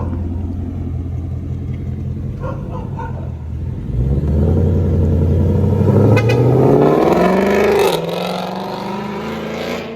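2022 Ford Mustang Mach 1's 5.0 V8, with an X-pipe and downpipe added to its exhaust, idling with a deep burble, then revved up about four seconds in and held before dropping back toward idle near the end.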